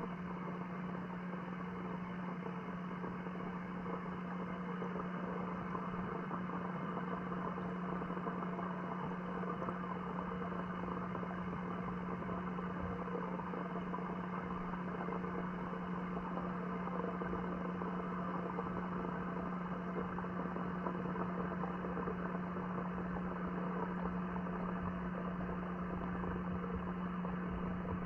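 Steady machine hum with one constant low tone, unchanging throughout, heard through the water by an underwater camera.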